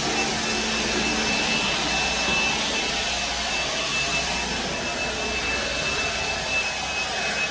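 Battery-powered handheld leaf blower running steadily, a rush of air with a steady high whine, blowing dirt along the grooved metal floor of a trailer.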